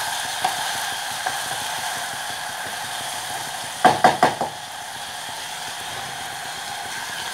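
Red kidney beans and boiled meat sizzling as they fry in ghee in a pot, a steady hiss. About four seconds in comes a short clatter of a wooden spoon knocking against the pot as the beans are stirred.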